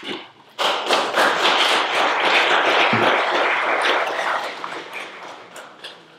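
Audience applauding, starting suddenly about half a second in and dying away over the last two seconds.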